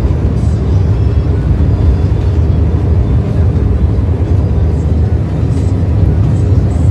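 Steady low rumble of a coach bus heard from inside the passenger cabin: the bus's engine and running noise, with no distinct events.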